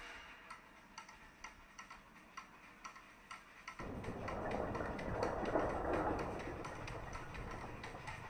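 Even, fast ticking of a music track's percussion runs throughout. About four seconds in, a rushing outdoor noise from the field recording comes in, swells and then eases off.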